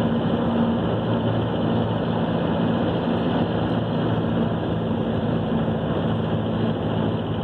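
Car interior noise while driving: the engine's steady low hum and road noise, heard from inside the cabin.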